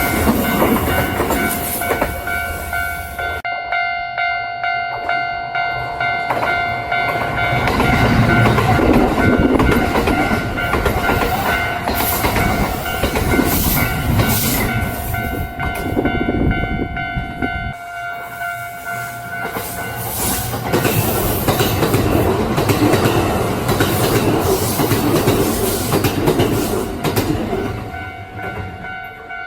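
Kintetsu electric train passing at speed, its wheels clattering over the rail joints in a repeated clickety-clack, loudest twice as the cars go by. A steady high tone sounds underneath throughout.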